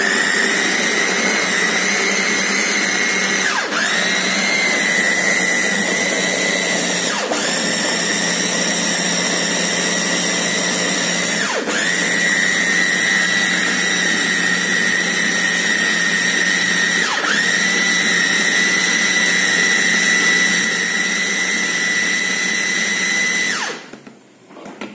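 Electric meat chopper with its motor on top of the bowl, grinding chicken, flour and egg into meatball paste. A steady high motor whine that briefly drops and spins back up four times, and stops shortly before the end.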